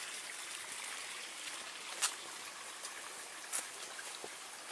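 Small woodland stream trickling: a soft, steady hiss of running water. A few short ticks stand out over it, the loudest about two seconds in and about three and a half seconds in.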